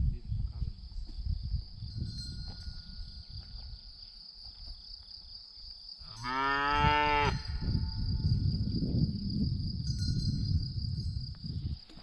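A cow moos once, about six seconds in: one call lasting just over a second.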